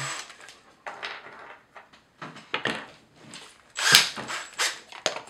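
Handling noise from work with tools and metal rods on a table: a scatter of short clicks, taps and rustles, the loudest about four seconds in.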